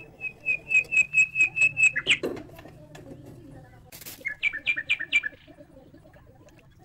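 A bird chirping: a quick run of about eight even, high chirps, ending in a falling note, then after a pause a second run of five quick chirps that each slide down. A brief burst of noise comes between them, about four seconds in.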